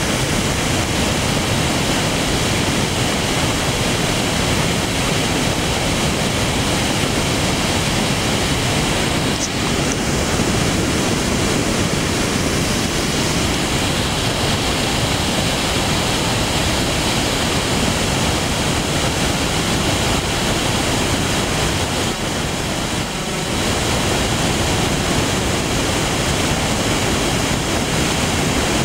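Muddy floodwater pouring over a dam spillway and churning in the pool below: a loud, steady rush of water that dips briefly about three-quarters of the way through.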